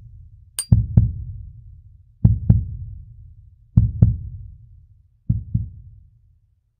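Heartbeat sound effect: low double thumps, lub-dub, about every second and a half, growing fainter toward the end. A sharp mouse-click effect sounds about half a second in.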